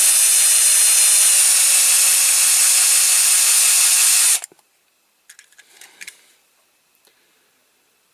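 Electric drill running steadily as it drills out the rivet holding a die-cast toy's base, its pitch sinking slightly as it goes. It stops abruptly about four and a half seconds in, followed by a few faint handling clicks.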